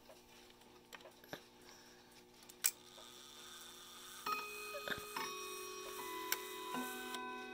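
Howard Miller 612-437 clock chiming: its hammers strike the steel chime rods one after another from about four seconds in, each note ringing on over the last, after a few clicks from the brass movement. The chime is sounding properly after a repair.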